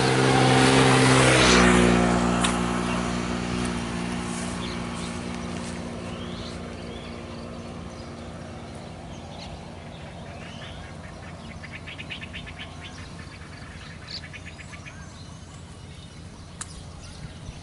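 A motor engine running, dropping in pitch about a second and a half in and fading away over the next several seconds. Bird chirps follow, with a rapid trill a little past the middle.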